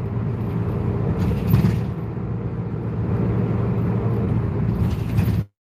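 Steady engine and road noise inside a moving route bus's cabin, with a low engine hum. The sound cuts off abruptly near the end.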